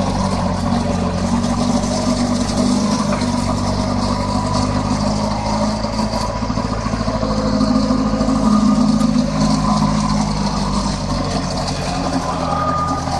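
Engine of a piggyback truck-mounted forklift running steadily as the machine drives and manoeuvres, getting a little louder about two-thirds of the way through.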